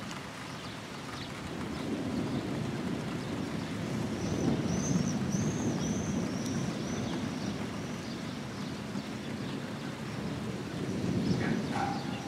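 Distant thunder rumbling low, swelling for several seconds and swelling again near the end. A bird gives a quick run of high chirps midway.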